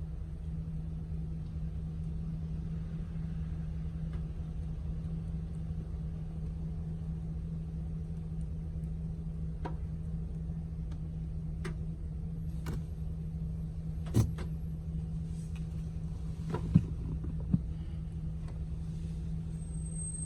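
Car engine idling at a standstill, a steady low hum heard from inside the cabin, with several short sharp clicks in the second half.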